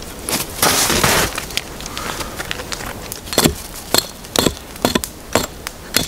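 Hatchet chopping wood on a fallen log: a run of sharp cracking strikes about two a second through the second half, after a brief rustling stretch near the start.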